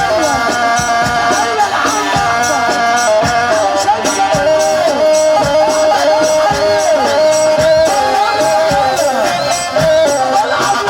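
Loud Middle Eastern dance music: an ornamented melody line that bends between notes, over a steady drum beat.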